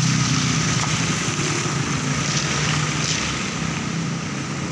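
Truck engine running steadily as it drives past on the road, its low hum and road noise slowly fading.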